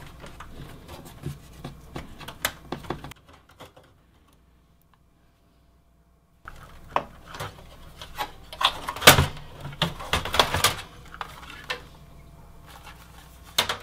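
Scattered metallic clicks and clinks of screws being taken out of the back of a Dell Optiplex 780 SFF desktop's steel case and its power supply being worked loose, with about three seconds of dead silence in the middle.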